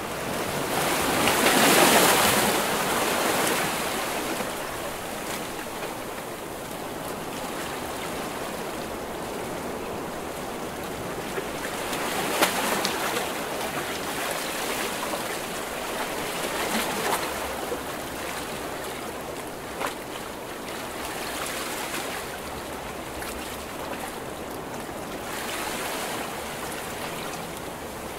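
Ocean waves crashing and washing in as a continuous rush of surf. A big wave breaks about two seconds in, and smaller surges follow every four to five seconds.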